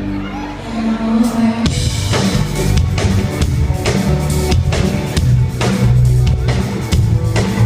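Live rock band playing loudly: held bass and guitar notes, then the drum kit comes in about one and a half seconds in with a steady kick and snare beat under a moving bass line.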